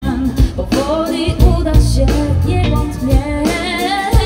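Live pop band playing through a stage PA: singers' voices carrying a melody over guitar, bass and drums, with heavy low drum hits.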